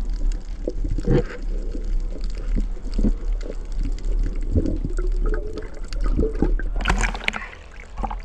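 Underwater sound picked up by a diving camera: water gurgling and washing around it, with many irregular knocks and a louder rush of noise about seven seconds in.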